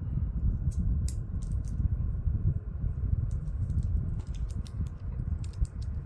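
Small hard clicks and ticks of a KastKing Centron 4000 spinning reel being handled while its crank handle is moved over to the right-hand side. A few scattered clicks come in the first two seconds, then a quicker run of them from about three seconds in, over a steady low rumble.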